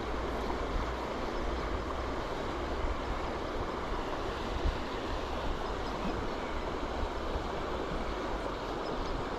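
River water rushing steadily, the flow up after rain, with wind rumbling on the microphone.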